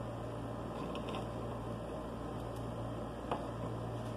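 Steady low hum and hiss of room tone, with a few faint, short clicks from pliers cutting and stripping a thin electrical wire.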